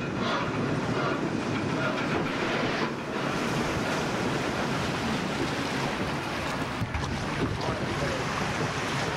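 Rushing, churning water around a round raft on a river rapids ride, growing fuller and hissier about three seconds in as the raft moves out onto open rapids.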